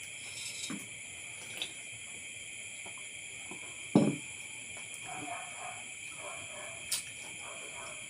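Steady chirring of night insects, with a single sharp knock about four seconds in and a lighter click near seven seconds.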